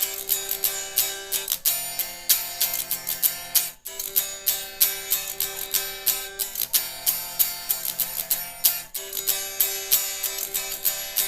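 Acoustic guitar strummed in a steady rhythm, changing chords about every two and a half seconds, with a brief break in the strumming about four seconds in.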